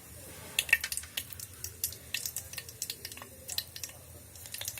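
Hot cooking oil crackling and spitting in a pan as a green chili fries, with irregular sharp pops several times a second.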